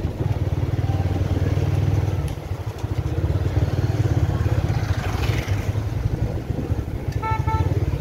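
Motorcycle engine running at low road speed with a steady low throb, easing off slightly a couple of seconds in. Near the end a horn beeps twice, briefly.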